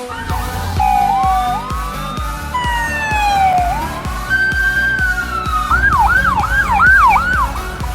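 Fire engine siren sweeping slowly up and down in a wail, then switching to about five quick rising-and-falling yelps near the end. It sounds over music with a steady beat.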